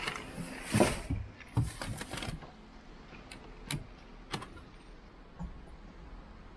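Handling noises in a Porsche 911 GT3 RS cabin: a few thumps and rustles, then two sharp clicks from the ignition switch being turned, with the engine not yet running.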